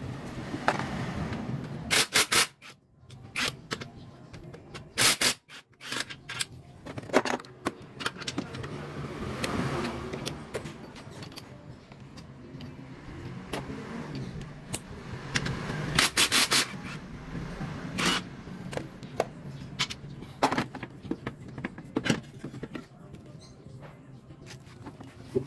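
Short whirring bursts from a cordless impact tool running scooter exhaust mounting bolts out, a few seconds apart, with metal clinks and scraping of parts and tools in between.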